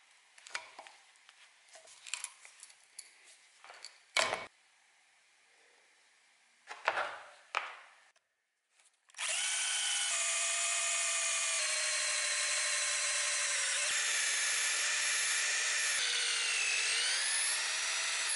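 A hand tool picks and pries at the old wooden handle stub wedged in a rusty axe eye, giving small clicks and scrapes and a couple of sharp knocks. About nine seconds in, an electric drill starts and bores steadily into the wood with a loud whine, which dips in pitch briefly under load near the end.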